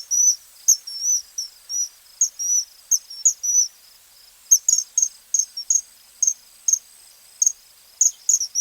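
Common kingfisher calling: a string of short, shrill, high-pitched whistled notes, some single and some in quick runs of two or three, at irregular intervals.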